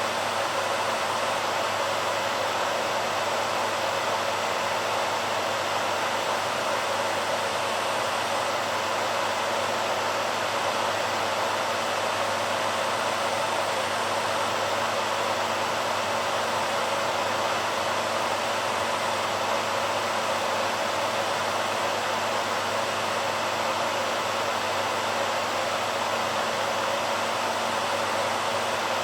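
BaByliss hairdryer running steadily: a constant rush of blown air with a faint low hum beneath it, unchanging throughout.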